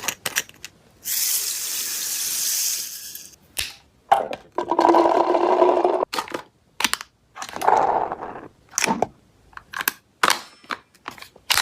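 Toy gel blaster with a smoke silencer. A hiss runs for about two seconds near the start. After that come two buzzing, motorised whirs, the longer one about four seconds in, with sharp clicks in between.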